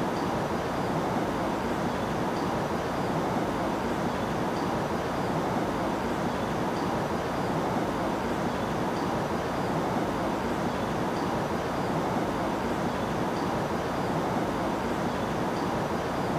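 Steady, unchanging noise with a faint high tick about every two seconds.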